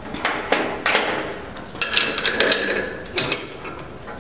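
Metal tools and brake-lathe parts being handled. A few sharp knocks come first, then a ringing metallic clatter about two seconds in, and a couple more knocks after three seconds.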